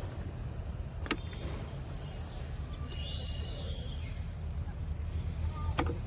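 Outdoor background with a steady low rumble, like traffic or an engine running, and a few faint sharp clicks.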